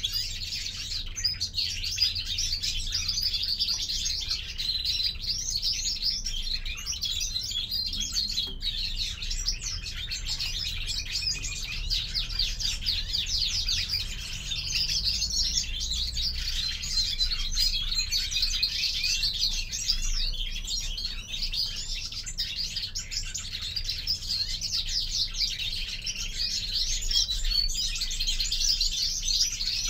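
European greenfinches chirping and twittering without a break, a dense run of quick trills and chirps.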